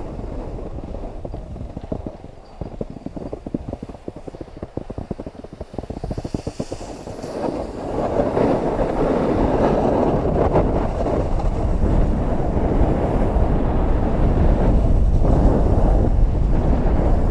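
Skis running over hard-packed, groomed piste snow, with a fast rattling chatter for the first several seconds that turns into a louder, steady scraping rumble about eight seconds in, wind buffeting the camera's microphone.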